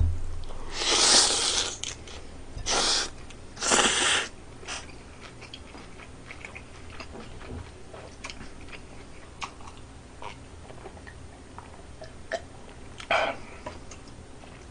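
Mouthful of jaengban guksu (cold mixed noodles) slurped up loudly in three quick pulls over the first few seconds, then quieter chewing with small clicks, and one more short slurp near the end.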